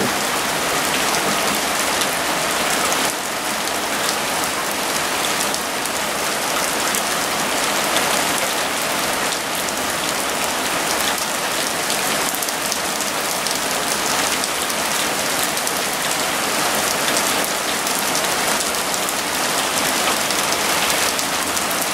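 Heavy rain shower falling steadily, big drops splashing on a paved street and lawn.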